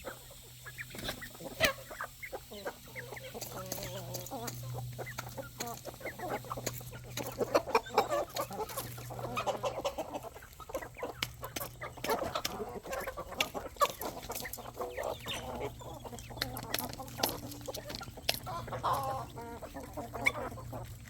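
A flock of chickens and roosters clucking at feeding time, with many short, sharp clicks scattered throughout and a low, steady hum underneath.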